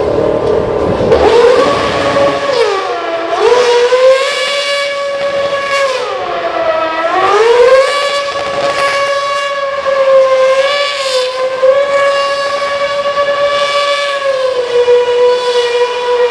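Formula One car's Renault V8 at high revs. Its pitch climbs about a second in, dips sharply and recovers twice, around three and seven seconds in, as it lifts off and accelerates again, then holds high and steady with small wavers.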